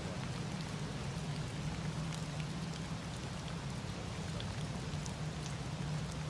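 Steady rain falling, with scattered light drop ticks over a constant low hum.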